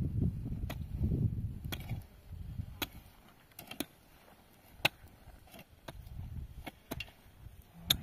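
A series of short, sharp knocks or clicks at irregular intervals, about ten in all, with a low rumble during the first couple of seconds.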